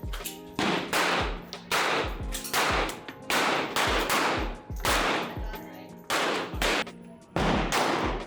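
Background music with a heavy, regular beat: deep bass kicks and loud crashing, gunshot-like hits about every 0.8 s over held notes.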